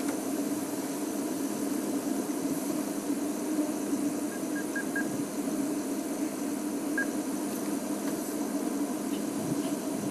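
A steady mechanical hum that does not change, with a few faint short high chirps about four seconds in and again near seven seconds.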